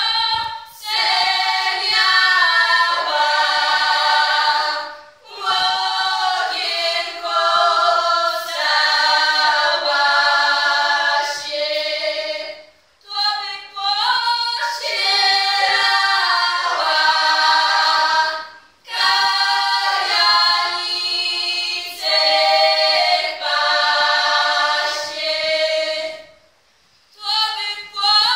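A group of young women singing a cappella in the Polish highlander (Górale) style of the Podhale region, in high voices. One voice opens each phrase and the others join in close harmony, with short breaths between phrases about every five to seven seconds.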